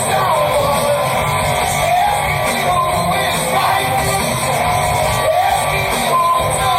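Live rock band playing at full volume, with electric guitar to the fore over bass and drums; a melodic line bends and glides in pitch throughout.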